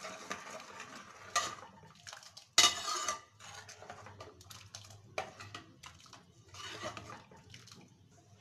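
Steel ladle stirring thick dal in an aluminium pressure-cooker pot, clinking and scraping against the metal sides, with one sharp knock about two and a half seconds in that is the loudest.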